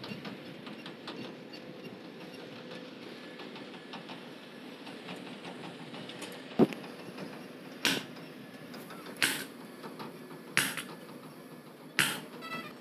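Sharp metal knocks against a steady low background noise. One heavy knock comes just past halfway and is the loudest, then four brighter clanks follow about every second and a half, some with a short ring.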